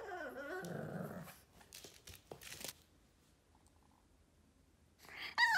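Boston terrier puppy whining and grumbling in a tantrum. A drawn-out whine dips in pitch and rises again at the start, a short low growl follows, then a louder, higher whine comes near the end.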